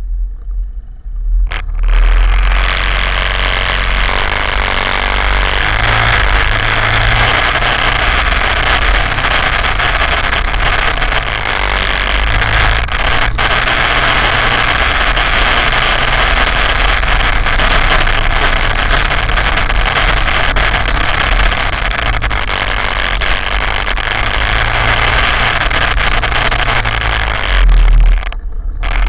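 Quad bike engine running as the machine drives steadily along a rough grassy track, with a constant rushing noise over a low rumble. Briefly, about a second in and again just before the end, the higher part of the sound drops away and only the low rumble is left.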